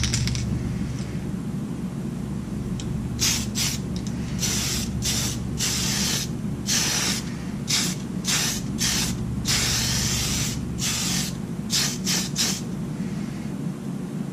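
Tamiya TS-13 clear lacquer aerosol can spraying in about a dozen short hissing bursts, starting about three seconds in, over a steady low hum.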